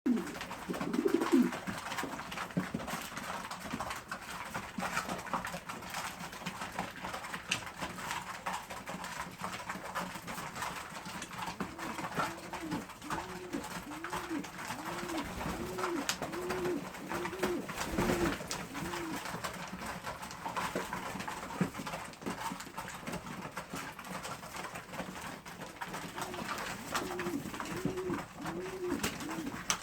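Domestic pigeons cooing: a run of short, evenly repeated coos, about one and a half a second, in the middle and again near the end, with a louder call right at the start.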